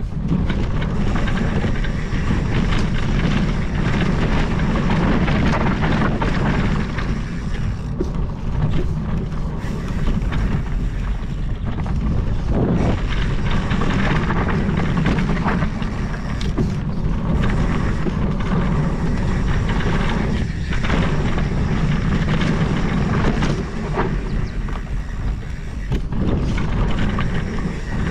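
Wind buffeting the microphone over a mountain bike's knobby tyres rolling on a dirt trail, with scattered knocks and rattles from the bike as it rides over bumps.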